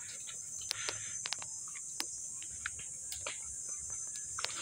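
Steady, high-pitched drone of a forest insect chorus, with scattered light clicks of footsteps on a stone path.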